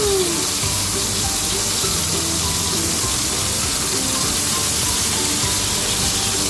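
Ground-beef patties sizzling steadily in hot oil in a frying pan as they are turned over with a spatula.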